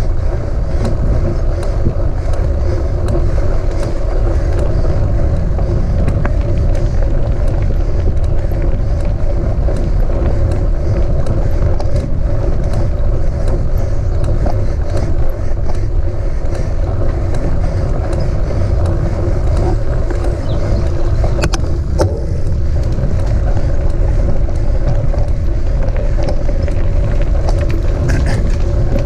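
Ride noise of a mountain bike climbing a dirt and gravel track, heard from the bike: a steady low rumble of tyres and frame, with scattered small clicks and rattles.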